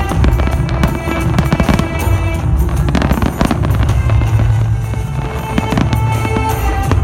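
A fireworks display going off in rapid succession, many sharp bangs and crackles a second, with music playing loudly underneath.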